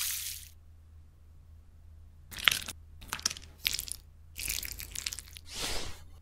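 Small plastic Lego tiles crunching and clattering as hands scrunch and mix a heap of them, in several separate bursts over the second half.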